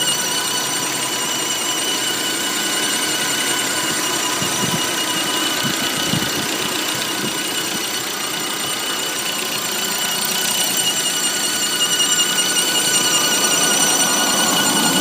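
Lifan Solano engine running with a steady high-pitched whistle from its coolant water pump, which the owner takes for a failing pump at about 30,000 km.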